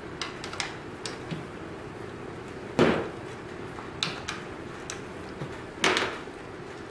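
Small metal clicks and clinks of a hand tool working the ignition-coil bolts on a Toyota Corolla engine, with two sharper knocks, one about three seconds in and one near the end.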